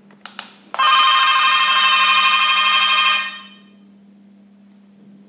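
Urmet 1734/501 video door entry kit sounding its call tone after the outdoor panel's call button is pressed. Two light clicks of the button come first, then, under a second in, a loud steady electronic ring that holds for about two and a half seconds and fades out. A steady low hum runs underneath.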